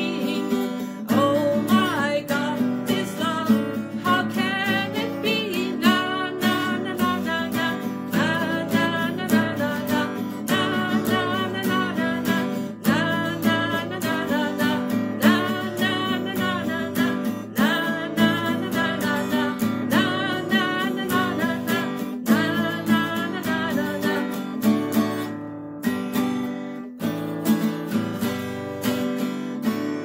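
A woman singing a worship song while strumming a Yamaha acoustic guitar, including a sung "na na na" refrain. Near the end the singing stops and a final strummed chord rings out and fades.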